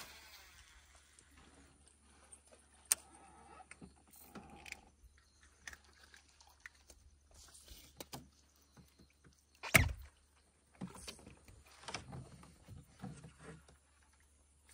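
Quiet handling sounds in a small boat as a gill net is pulled in by hand: scattered clicks, knocks and rustles, with one louder thump near the ten-second mark.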